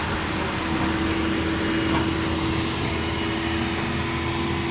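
A motor vehicle's engine running steadily with road and wind noise and a constant hum.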